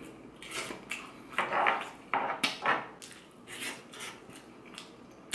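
A spoon scraping and tapping against a wooden serving board as rice and chicken are scooped up, in a string of short, irregular scrapes.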